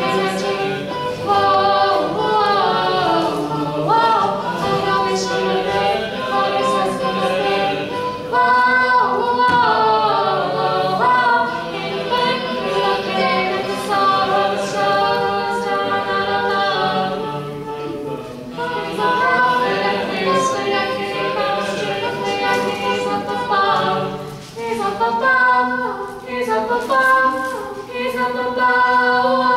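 Four-part a cappella vocal group of mixed young male and female voices singing in harmony, one voice amplified through a handheld microphone, with brief breaks in the singing about 18 and 24 seconds in.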